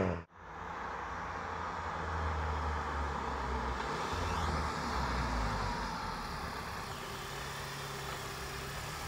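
Mk7 VW Golf GTI Performance's turbocharged 2.0-litre four-cylinder engine idling steadily.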